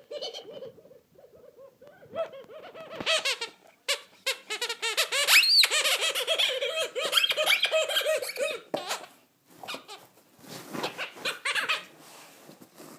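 A dog chewing its squeaky ball, setting off rapid runs of high squeaks with a short break about two-thirds through.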